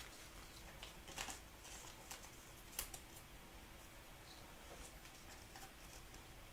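Near silence with a handful of faint, scattered clicks and light rustles from trading cards being handled.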